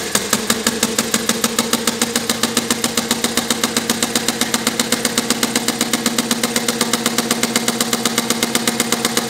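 Model inverted hit-and-miss engine running on compressed air in straight four-stroke mode, wide open on about 100 psi. It makes a fast, even string of sharp air pulses, about six a second, over a steady hum.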